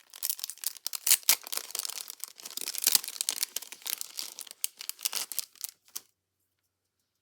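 Crinkling and rustling of paper craft materials being handled, a dense run of crackles that cuts off abruptly about six seconds in.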